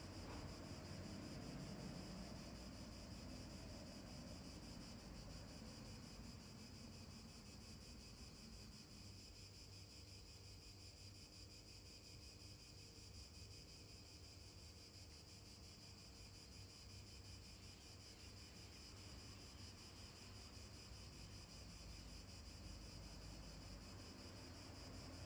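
Near silence: faint, steady background noise, an even high hiss over a low rumble, with no distinct events.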